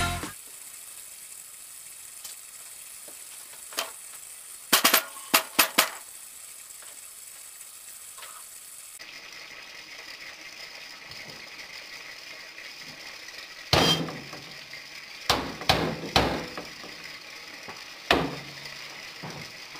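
Sharp clinks and knocks from a broken sink, coming irregularly: one about 4 s in, a quick run of four just after, then another cluster from about 14 to 18 s in, over a faint steady hiss.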